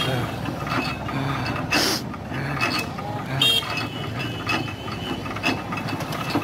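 A motorized machine running steadily: a low hum with mechanical rattling and scattered clicks.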